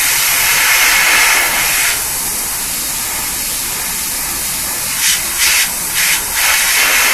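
Badger Anthem 155 airbrush spraying paint at about 60 psi: a longer hiss for the first two seconds, a softer steady hiss after, then four short spray bursts near the end as highlights are dabbed on.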